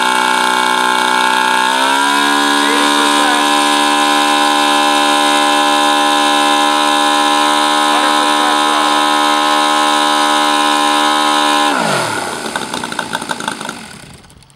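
Saito FA-200R3 three-cylinder four-stroke glow radial engine turning a propeller at high power on a test stand. It steps up slightly in pitch about two seconds in to full throttle, about 9,000 rpm, and holds a steady note. Near the end it cuts out and winds down, the pitch falling as the propeller spins to a stop.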